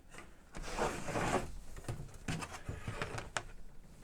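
Hands working at a cassette deck's chassis during disassembly: a rubbing scrape about a second in, then several light clicks and taps of plastic and metal parts.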